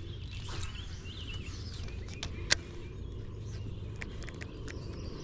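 Birds chirping over a steady low rumble, with a few sharp clicks, the loudest about two and a half seconds in.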